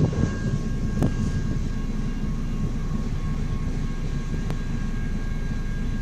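Steady low rumble of road and engine noise heard inside a car's cabin, with two faint clicks, one about a second in and one about four and a half seconds in.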